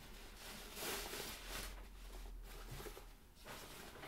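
Soft rustling of a cloth drawstring dust bag being loosened and pulled open by hand, loudest about a second in.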